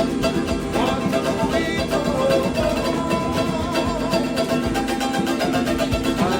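Background music led by a plucked acoustic guitar, strummed and picked notes with a steady beat.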